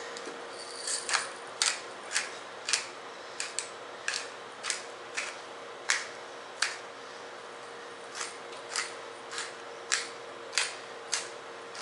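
Hand-twisted sea salt grinder being worked over the squash: a run of short, sharp clicks, roughly two a second, starting about a second in.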